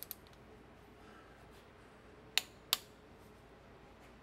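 Click-type torque wrench giving two sharp clicks about a third of a second apart, the sign that the intake manifold bolt has reached the set torque. A brief rattle of ratchet clicks comes at the very start.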